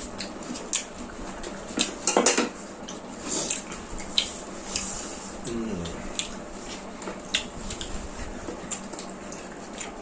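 Plates and cutlery clinking and scraping while people eat, in scattered light clicks with a louder cluster about two seconds in.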